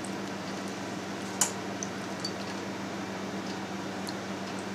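Soft wet squelches and small splashes of a stretched chechil cheese strand being worked by gloved hands in a glass bowl of cold water to cool and set it, with one sharp click about a second and a half in, over a steady low hum.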